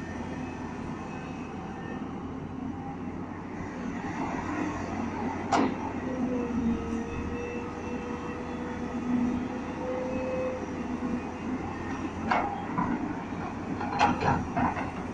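Tata Hitachi EX210 crawler excavator working in power mode while loading a tipper truck with soil: the diesel engine runs steadily under load, with a steady hydraulic whine through the middle. Sharp metallic clanks come about five and a half seconds in and again in a cluster near the end.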